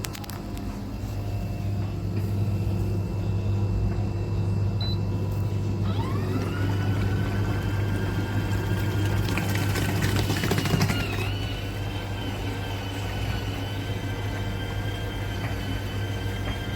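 Small electric motor of an ATB-GIFT 8 L portable mini washing machine running with a steady low hum; about six seconds in, a whine rises quickly and then holds steady.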